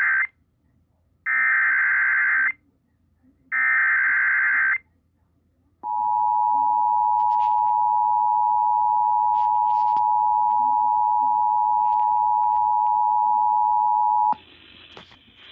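Emergency Alert System tones over a radio broadcast: the shrill digital SAME header bursts encoding a Severe Thunderstorm Warning, the first already under way, then two more about a second long each, then after a short gap the EAS two-tone attention signal held steady for about eight and a half seconds before it cuts off suddenly into faint line hiss.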